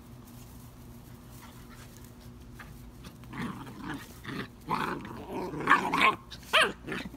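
Two puppies play-wrestling, growling in a run of short bursts that starts about three seconds in, with a sharper pitched yip near the end.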